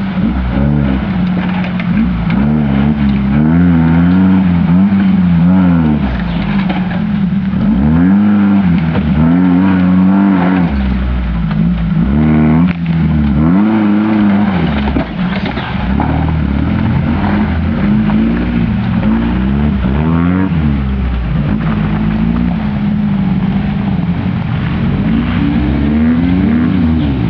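Off-road vehicle engine revving up and down over and over, its pitch rising and falling every couple of seconds as it works through the terrain.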